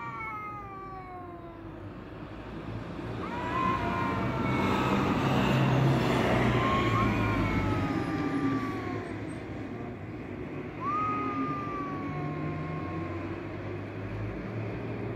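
Two cats yowling at each other in a standoff, in several long drawn-out calls that rise and then slowly fall in pitch, over a low rumble that swells in the middle.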